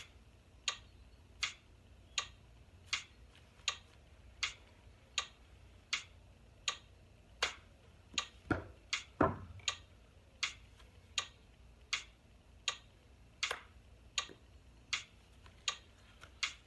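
Phone metronome app clicking steadily at 80 beats a minute, about one sharp tick every three-quarters of a second. A little past halfway two duller knocks, under a second apart, come from the golf club striking ball and turf on chip shots.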